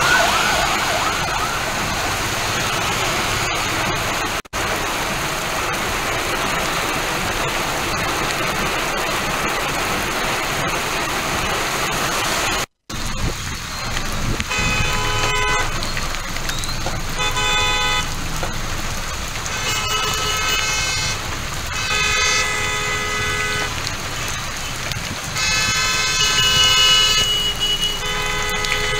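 Heavy rain pouring on a city street, a steady hiss. About halfway through it gives way to lighter rain and road traffic, with vehicle horns honking in several blasts of a second or two.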